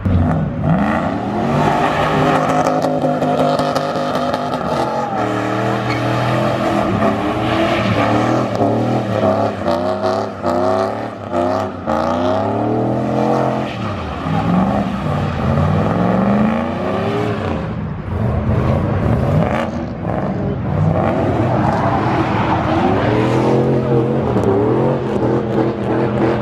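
Car engines revving hard again and again, each rev sweeping up in pitch and falling back, with cars accelerating away.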